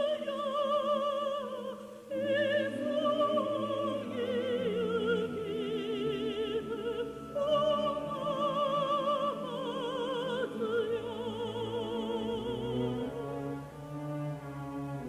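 Christmas song sung in operatic style: a solo voice with wide vibrato over orchestral accompaniment with bowed strings and bass, the voice fading near the end as the strings carry on.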